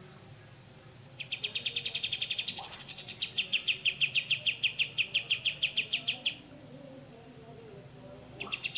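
Cucak jenggot (grey-cheeked bulbul) giving its 'besetan' call, a fast rattling series of notes at about seven a second. The series starts about a second in, stops about two-thirds of the way through, and starts again just before the end. A thin steady high tone runs under it.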